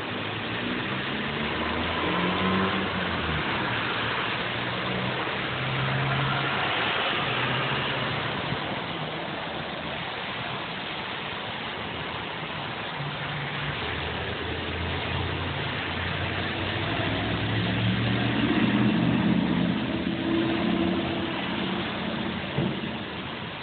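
Cars driving through a wet intersection: engines and the hiss of tyres on wet pavement, swelling twice as vehicles pass close by.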